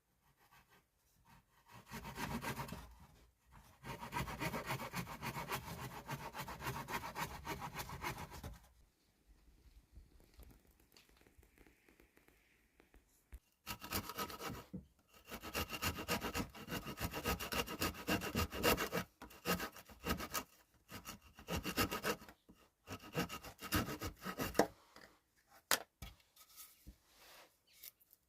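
Hand saw cutting wood in quick back-and-forth strokes, in two bouts of several seconds with a short pause between.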